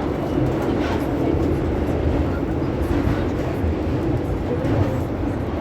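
São Paulo Metro Frota J train running along the line, a steady rumble of wheels on rail and running gear.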